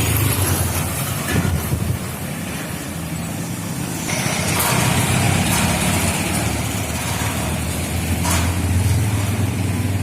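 Motor vehicle traffic passing on a street, engines running with a steady low hum that swells as vehicles go by about four seconds in and again near the end.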